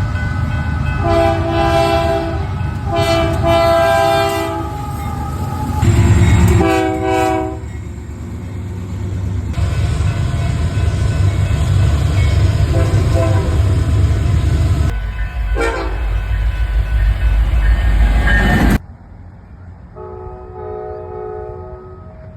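Locomotive air horn sounding a multi-note chord in three blasts, two long and one shorter, over the heavy rumble and clatter of a passing train. The train keeps rumbling past, then the sound cuts off abruptly and another train horn chord sounds once, fainter, near the end.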